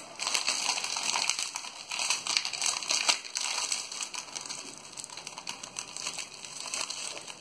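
Plastic wrapper of a packet of lemon biscuits crinkling and crackling as it is torn open and handled by hand, a dense, irregular run of small crackles.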